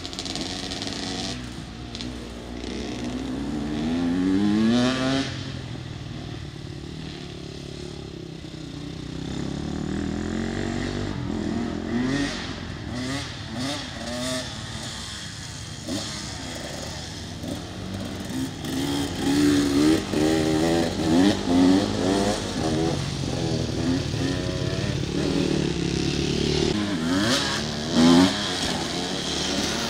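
KTM dirt bike engine revving and accelerating on a dirt motocross track. The pitch climbs through the gears and drops off again and again, with sharp throttle blips near the end.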